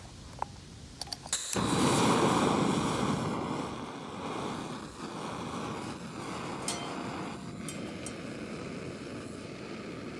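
A few small metal clicks from a canister camping stove being set up, then about a second and a half in its gas burner lights with a sudden rush and burns with a steady hiss, loudest for the first couple of seconds and then lower and even.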